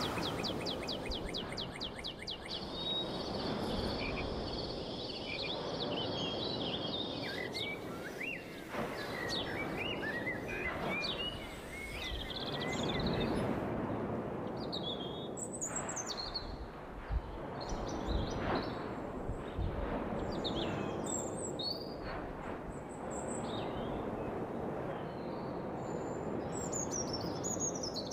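Birds chirping and calling in many short, high glides over a steady rushing background noise, with a fast high ticking trill in the first couple of seconds.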